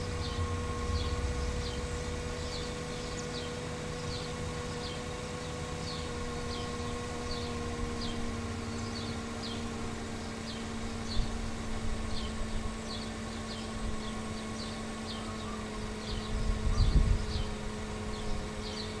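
Steady hum of an idling car engine, with a short high chirp repeating about one and a half times a second over it. A low rumble swells briefly near the end.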